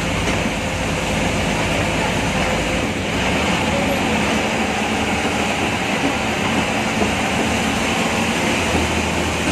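Steady interior noise of an MSRTC state-transport diesel bus under way, heard from inside the driver's cabin: engine drone mixed with road noise. The low engine note shifts about three seconds in and again near the end.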